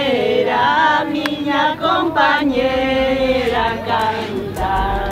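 A group of women singing a folk song together without accompaniment, in long held notes that slide between pitches. Near the end a low bass sound comes in.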